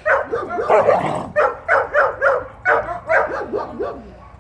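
German Shepherd barking repeatedly in play, about two or three barks a second, some running together, trailing off near the end.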